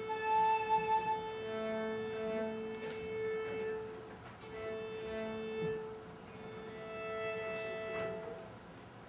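Chamber music of violin and cello playing slow, long-held notes. One note is sustained under shorter, higher notes, and the sound dies away about eight and a half seconds in.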